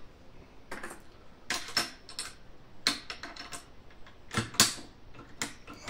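Sharp gunshot cracks on a rifle range, about a dozen at irregular intervals, some with a short high ringing after them; the loudest pair comes about four and a half seconds in.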